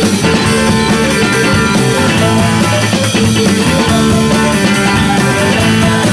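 Background rock music, an instrumental stretch led by guitar over a steady beat.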